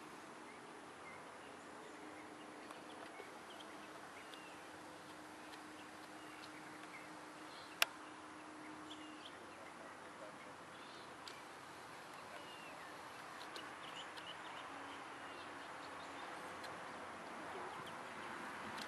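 Faint outdoor ambience under large trees: a steady hiss with scattered short bird chirps and a faint low hum in the first half. One sharp click comes about eight seconds in.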